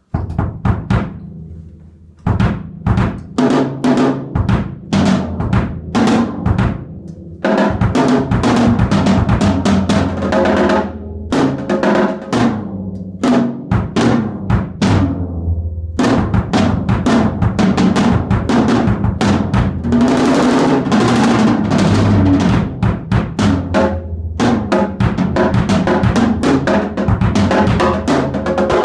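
Yamaha Stage Custom drum kit, tuned wide open and heard through a room mic, played in grooves and fills across the drums. A sustained high wash joins at about eight seconds, and the playing pauses briefly twice.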